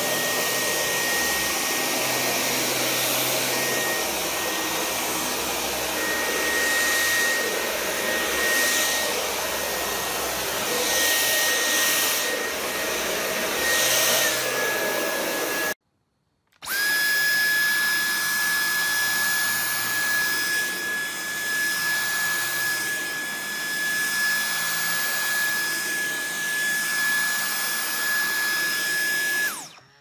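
Dyson cordless stick vacuum running: a steady high motor whine over the rush of suction as the head is pushed across the floor. About halfway through the sound breaks off for a moment and comes back with the whine slightly lower, as the vacuum cleans carpet.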